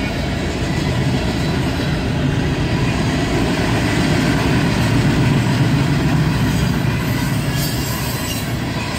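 Freight cars of a CSX manifest train rolling past: a steady rumble of steel wheels on the rails, heard from inside a car.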